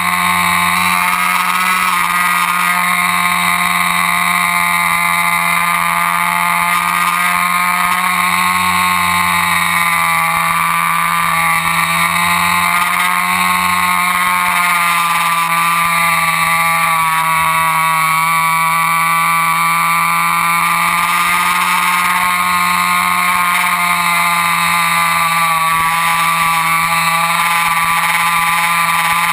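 RC model airplane's motor and propeller running steadily, the pitch drifting slightly up and down with throttle and airspeed.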